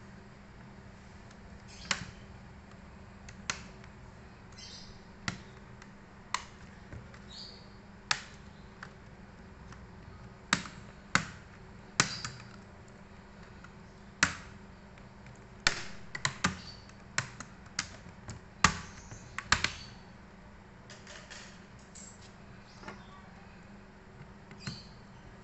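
Sharp irregular clicks and taps of small tools and plastic laptop parts as a Dell Latitude E7250 is opened up, single clicks every second or two, thickening into a quick flurry midway, then thinning out again.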